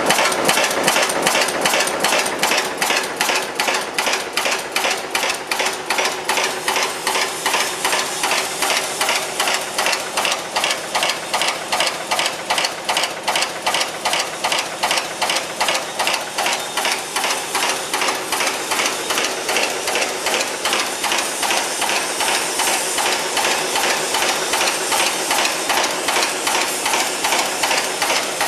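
RA-15S screw cold heading machine (a header for self-tapping screws) running at production speed: a fast, even rhythm of metallic strokes, about three a second, each stroke heading a wire blank.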